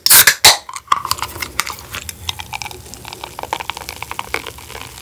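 An aluminium beer can cracked open with a loud burst of hiss at the start, then the beer fizzing and crackling as it is poured into a glass mug.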